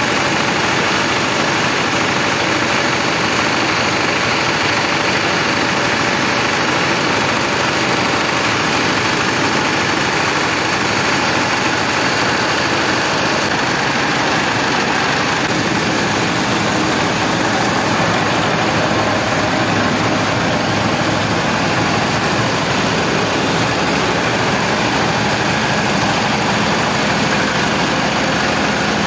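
Small belt-driven rice mill running steadily, its drive, pulleys and belts making a constant loud mechanical noise as grain passes through.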